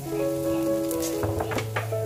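Background music with held notes, over faint sizzling of vegetables frying in a wok, with a few sharp clicks between one and two seconds in.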